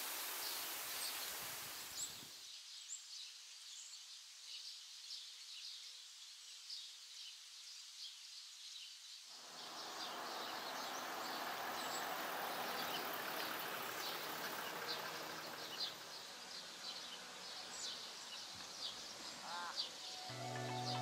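Bush ambience: many small birds chirping, short high calls scattered throughout over a faint steady hiss. Music begins at the very end.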